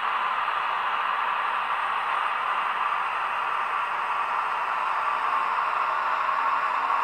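Sound decoder in an Acme model of the FS E444 electric locomotive, playing through its small onboard speaker as the model moves off slowly: a steady hiss like the real locomotive's cooling blowers. It grows slightly louder, with faint steady tones coming in near the end.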